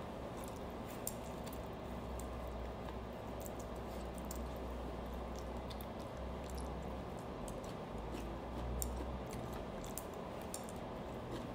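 Someone eating stir-fried rice noodles with chopsticks: soft chewing and mouth sounds with scattered small clicks, over a low steady hum.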